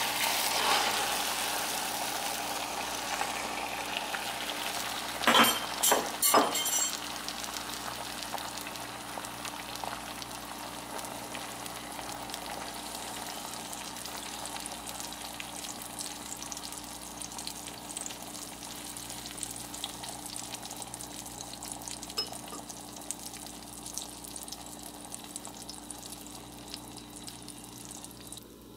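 Beaten egg with chopped vegetables sizzling in oil in a nonstick frying pan, loudest just after it goes in and slowly dying down. Three sharp clacks come about five to seven seconds in.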